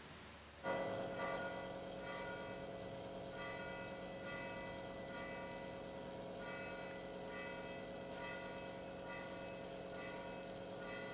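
Music with bell-like chime notes ringing about twice a second over a steady held drone, starting suddenly under a second in.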